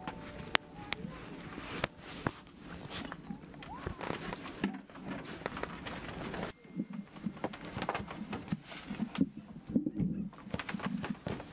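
Handling noise: cloth and fur rustling, with many scattered small clicks and light knocks and some soft thumps, as of movement on a wooden floor.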